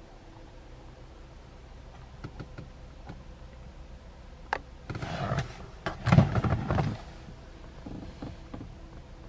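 An Audi RS5's glovebox being opened: a sharp click of the latch about four and a half seconds in, then a couple of seconds of clunks and rustling as the lid comes down.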